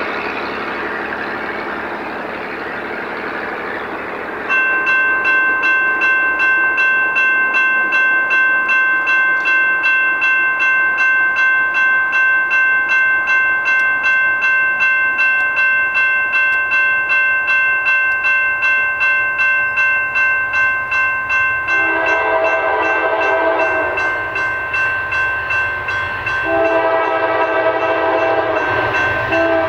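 Railroad grade-crossing warning bell starting about four seconds in and ringing at about two strikes a second. From about 22 s in, an approaching Norfolk Southern freight locomotive's horn sounds twice, a blast of about two seconds and then a second blast that runs on.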